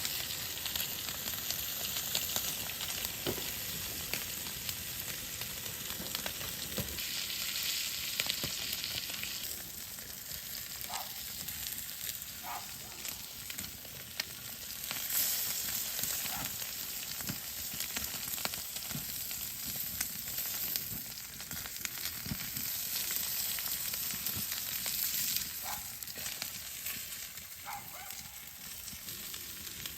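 Meat sizzling steadily as it sears over a wood fire, with scattered small pops and crackles.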